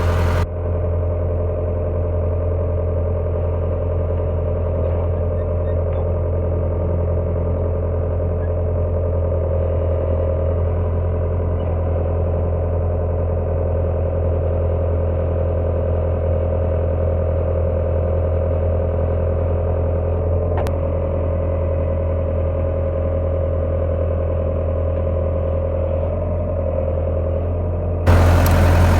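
Engine of a heavy machine running steadily with a low drone, with one sharp click about two-thirds of the way through.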